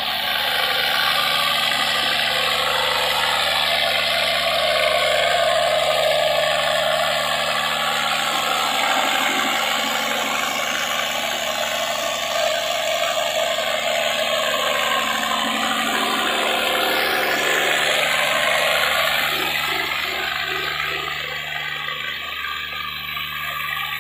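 Cummins QSZ13-G3 13-litre inline-six diesel generator set running steadily at constant speed on a test bench, a loud, even engine and radiator-fan noise with a low steady hum. It grows somewhat fainter near the end.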